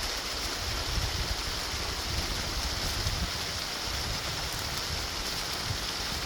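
Running water making a steady, even rush, with a low fluttering rumble of wind on the microphone beneath it.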